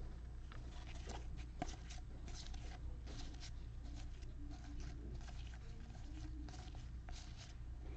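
Faint rustling and small clicks of trading cards being handled and slid through by hand, over a steady low hum.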